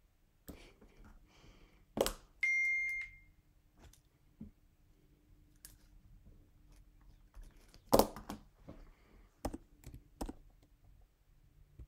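A single electronic beep, one steady high tone lasting about a second, among scattered sharp clicks and knocks from objects being handled; the loudest knocks come just before the beep and about eight seconds in.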